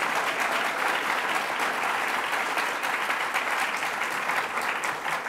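Audience applauding: a dense, steady clapping from a seated crowd that thins out near the end.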